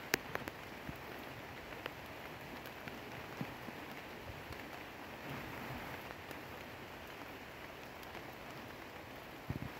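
Steady rain falling, an even hiss with scattered light ticks of drops. There is a sharp click just after the start and a few dull thumps near the end.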